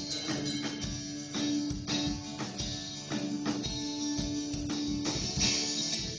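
A band playing an instrumental passage of a song: guitar with drums and tambourine on a steady beat.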